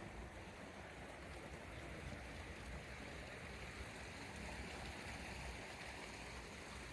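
Faint, steady rush of flowing water, the sound of a backyard waterfall water feature running.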